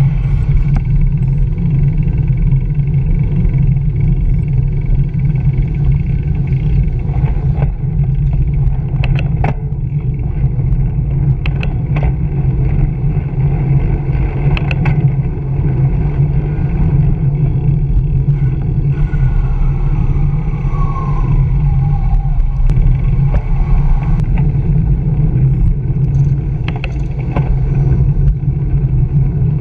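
Steady low rumble of wind and road vibration on a bicycle-mounted camera riding through city traffic, with a few sharp clicks and rattles and a short falling tone about twenty seconds in.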